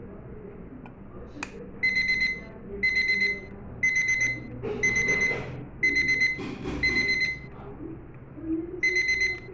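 Electronic alarm clock beeping: a high, piercing beep in short bursts about once a second, starting about two seconds in. It pauses briefly near the end, then resumes.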